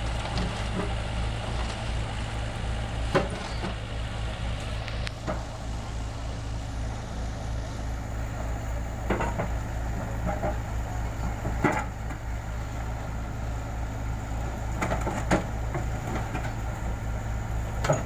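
Volvo mini excavator's diesel engine running steadily, with a few sharp knocks over it.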